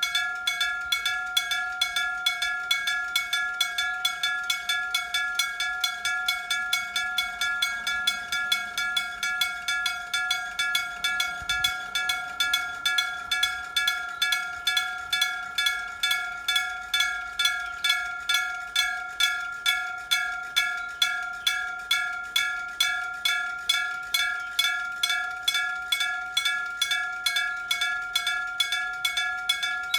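Electric gong bell of a Japanese railway level crossing ringing its warning: a clear metallic bell struck repeatedly at an even rate of a little over two strokes a second, each stroke ringing on briefly.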